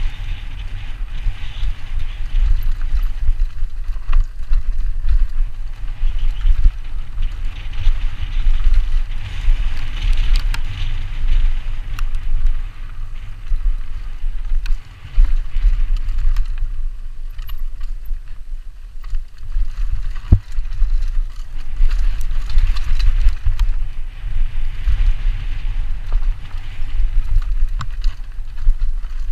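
Wind buffeting a helmet-mounted camera's microphone with a heavy, gusting rumble during a fast mountain-bike descent, over the hiss of tyres rolling on a dirt trail. Scattered sharp clicks and knocks come from the bike rattling over bumps, with one louder knock about two-thirds of the way through.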